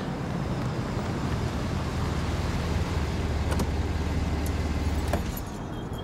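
Full-size SUV rolling up to the curb and stopping: a low engine and tyre rumble builds, then drops away suddenly about five seconds in. A few faint clicks sound over steady street noise.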